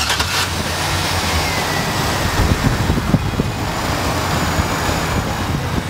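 2010 Chevrolet Silverado 2500HD's Vortec 6.0L V8 gasoline engine running, heard from the open engine bay. The sound is full and steady, a little louder about halfway through.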